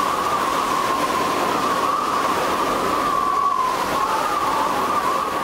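Strong wind blowing: a steady rush with a wavering whistle riding on top, dying away at the very end.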